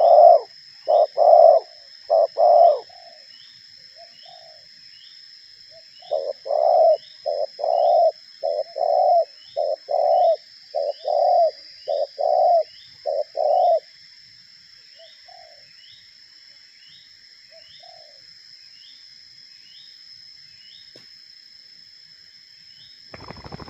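Spotted doves cooing: runs of short, low coos repeated in quick succession, a brief bout at the start and a longer one in the middle, then a few faint coos. A steady high drone and a regular high chirp about twice a second run underneath throughout.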